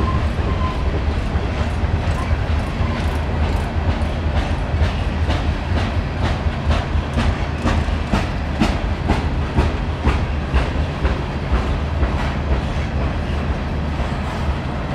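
Loaded coal train cars rolling past with a steady low rumble and a rapid, repeated clicking of wheels over the rail joints.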